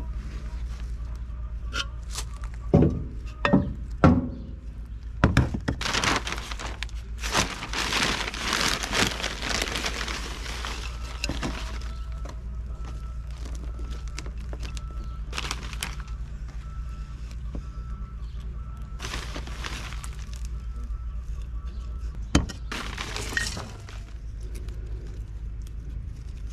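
Hands repotting plants: a few sharp knocks of terra cotta pots set down on a plastic truck bed about three to five seconds in, then rustling of a plastic potting-mix bag and soil pouring into a pot, with another knock about twenty-two seconds in. A steady low hum runs underneath.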